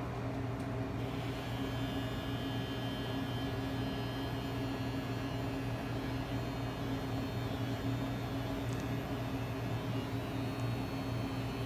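Electric hair clippers buzzing steadily while cutting hair, with a thin higher whine joining about a second in.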